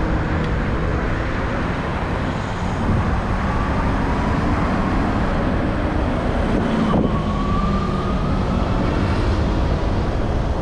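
Wind rushing over the handlebar microphone and tyre rumble from riding SUPER73 RX electric bikes, with the thin whine of their electric hub motors rising slowly in pitch as they pick up speed.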